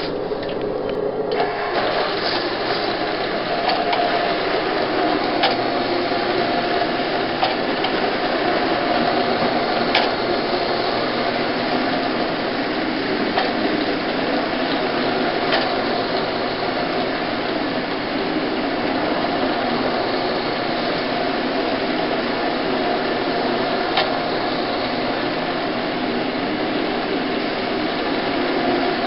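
Rotary hot-water extraction machine running steadily on wet carpet: its motor turns the spinning cleaning head while the extractor's vacuum hose sucks up the rinse water and loosened copier toner. It starts about a second in, with a few faint clicks over the steady running.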